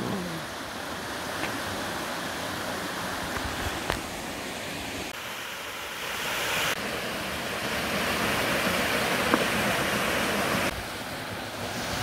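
Mountain-stream water rushing over rocks in small cascades: a steady rush that grows louder for a few seconds past the middle, then drops back near the end.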